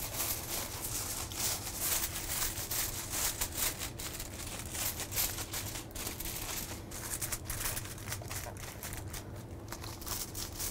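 Aluminium foil crinkling and crackling as it is pressed and crimped around the rim of a metal baking pan to seal it, in many small irregular crackles.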